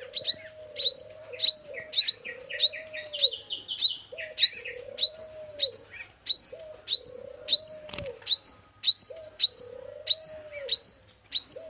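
Male five-colour sunbird calling over and over: a sharp, rising high note about twice a second, the lure call used to trap the species. A lower, arching call repeats beneath it about every second and a half, and a short run of lower chattering notes comes a few seconds in.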